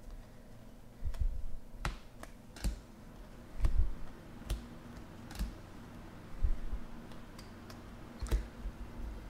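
Topps Chrome baseball cards flipped through by hand: irregular sharp clicks and light taps as the stiff cards are slid off the stack one after another, with a few low bumps from handling.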